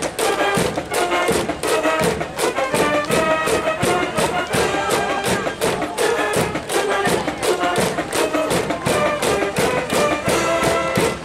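Brass band cheering music: brass instruments playing a melody over a steady drumbeat.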